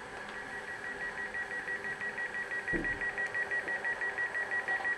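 Door-closing warning from the sound decoder of a Brawa H0 model of a DB Twindexx Vario double-deck train, played through the model's small loudspeaker: a rapid high beeping, about six beeps a second, that stops near the end. A low thud comes about halfway through.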